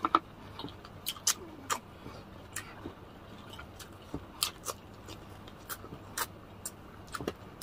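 Close-up eating sounds from crispy fried chicken and rice eaten by hand: short, sharp chewing and lip-smacking clicks at irregular intervals.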